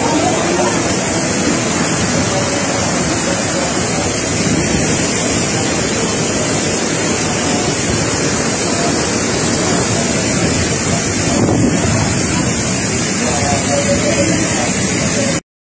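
Typhoon-force wind and heavy rain, a loud steady rushing noise with wind buffeting the phone's microphone. It cuts off suddenly near the end.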